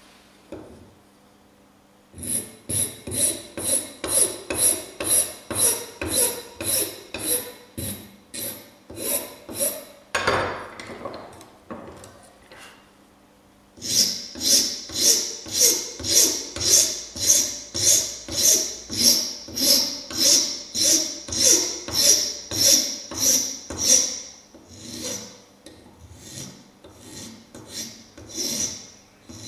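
Flat hand file rasping across the edge of thin aluminium sheet clamped in a bench vise, in even push strokes about two a second, rounding off a corner. The filing stops for a few seconds near the middle, starts again about fourteen seconds in, and turns lighter near the end.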